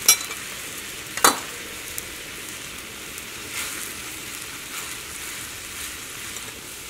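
Spiced water boiling with a steady hiss in a stainless steel pan while rice flour is stirred into it with a silicone spatula. Two sharp knocks come near the start, about a second apart.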